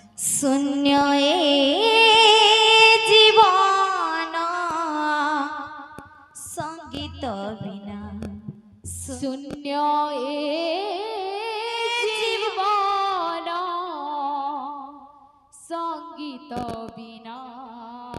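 A woman singing a devotional kirtan melody in two long, ornamented phrases with a wavering pitch, with brief brass hand-cymbal clashes between the phrases and a few low drum beats in the gap.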